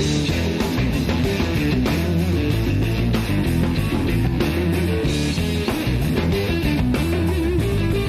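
Electric blues-rock band playing: electric guitars over bass and drums keeping a steady beat, with no singing yet. It is a cassette-tape recording of an FM radio broadcast.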